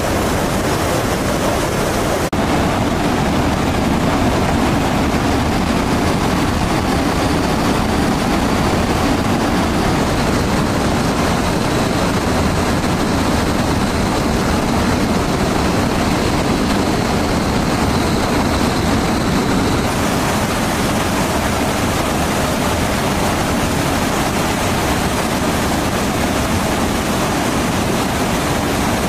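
Steady rushing jet noise of fighter jets in flight, an even, continuous roar of engine and airflow. The tone of the noise shifts slightly about two seconds in and again around twenty seconds in.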